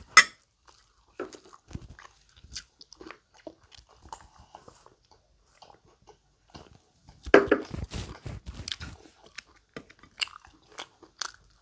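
Close-miked eating sounds: crunching bites and chewing, a scatter of short wet clicks and crackles with a sharp one right at the start and a denser, louder stretch of crunching and chewing about seven seconds in.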